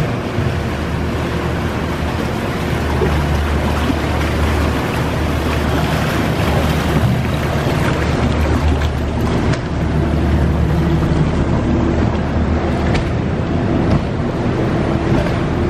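Motorboat water taxi passing close by a gondola, its engine running with a steady low hum over the rush of water.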